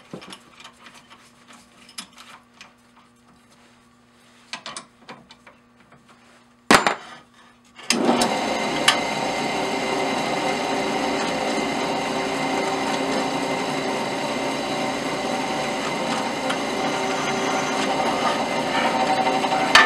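Light clicks of a drill bit being changed in a drill press chuck, then a sharp knock, and about eight seconds in the bench drill press starts and runs steadily, its letter S bit cutting into a hardened steel bolt held in the vise.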